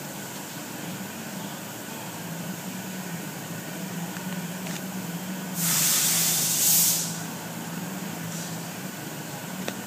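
A loud burst of hissing spray or air, about a second and a half long, about halfway through, over a steady low hum.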